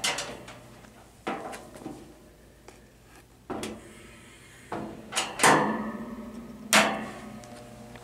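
Sheet-metal cabinet of a 220-volt electric shop heater being handled and shifted on a concrete floor: a series of about six knocks and clunks, the housing ringing briefly after the loudest ones, about five and a half and seven seconds in.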